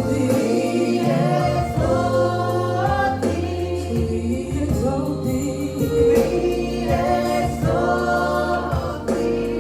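Gospel choir singing a slow worship song in long held chords.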